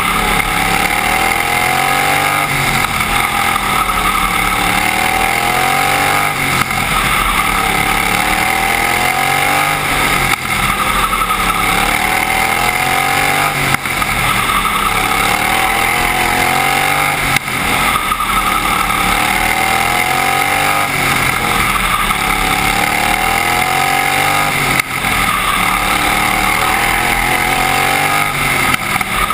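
Racing lawnmower engine under full race load, heard from on board: its pitch climbs and falls over and over every few seconds as the driver accelerates down the straights and backs off into the turns.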